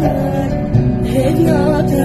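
Music: a Kurdish song, a voice singing a wavering melody over plucked-string accompaniment and steady low notes.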